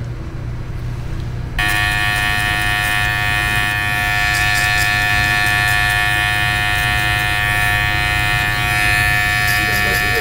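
Electric hair clipper switched on about a second and a half in, then buzzing steadily as it cuts along the hairline.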